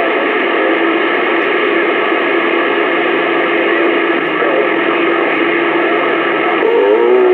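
CB radio receiver hissing with band noise and a steady heterodyne whine from an open carrier. Near the end a warbling, garbled signal breaks in over the static.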